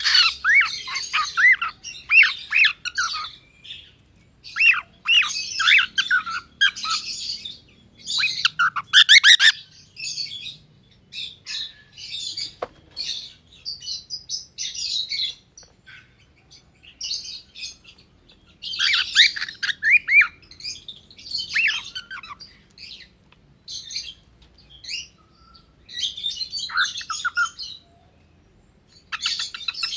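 Gray cockatiel chirping and whistling in repeated bouts of quick rising and falling notes, a second or two each, with short pauses between them.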